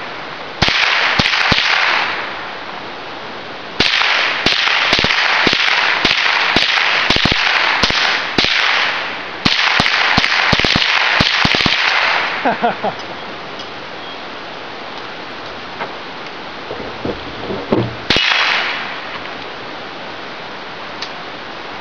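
.22 rimfire rifle fired rapidly, semi-automatic: strings of sharp cracks, dozens in all, with a noisy wash hanging between the shots. After a pause, one more shot comes near the end.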